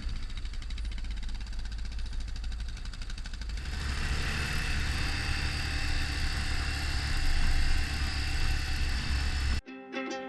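Yamaha XT 600's single-cylinder four-stroke engine running steadily, growing louder and rougher about a third of the way in. It cuts off sharply near the end, where plucked-string music begins.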